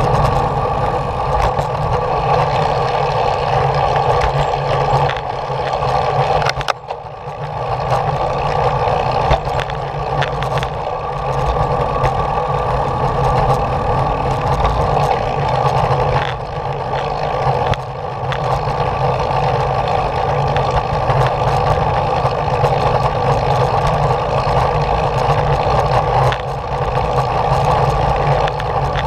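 Steady engine-like drone with rolling noise from the vehicle carrying the camera as it rides along a concrete path, easing off briefly about seven seconds in.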